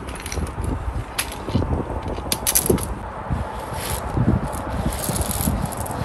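Tent being pitched: tent poles clicking and knocking, with the tent's fabric rustling and scraping on gravel as it is lifted. There are sharp clicks about a second in and again around two and a half seconds.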